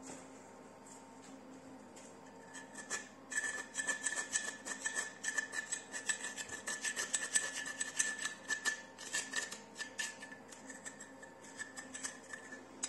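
Rapid, steady scraping and rubbing at the hardened scale clogging a heating circulation pump's parts, starting about two seconds in, with a faint steady high tone under the strokes.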